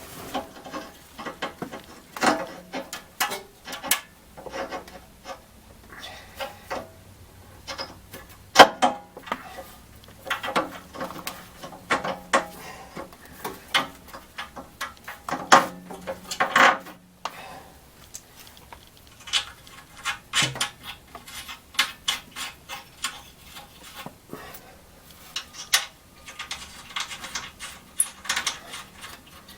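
Hand tools clinking, tapping and scraping on a car's metal exhaust parts: irregular clinks and knocks, the sharpest about eight and a half seconds in.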